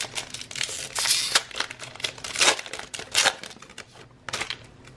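Trading cards and their foil pack wrapper being handled: an irregular string of short rustling, crinkling swishes as cards are slid off the stack one after another.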